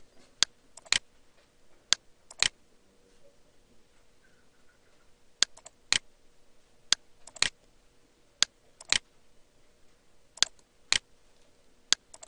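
Computer mouse button clicking: about a dozen sharp clicks, many in pairs about half a second apart.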